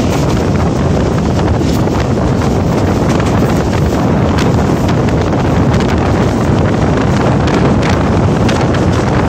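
Passenger train running on the rails, heard from an open coach window: a steady low rumble of wheels and running gear with heavy wind buffeting the microphone, and occasional sharp clicks.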